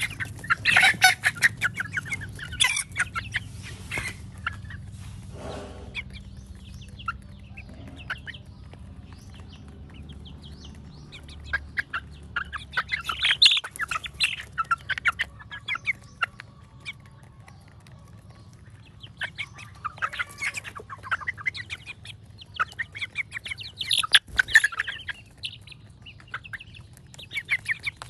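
Chickens clucking softly in short bursts while they feed, with many sharp taps as their beaks peck grain off hard dirt right by the microphone.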